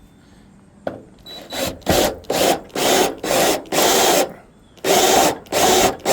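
Drill driving a gutter screw through the gutter into the old spike hole in the wooden fascia, run in a series of short spurts with one longer run, each a gritty grinding as the screw turns in.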